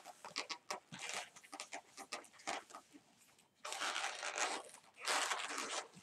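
Latex modelling balloon being twisted and handled: rubbery squeaks and rubbing, scattered at first, then two longer stretches of rubbing noise in the second half.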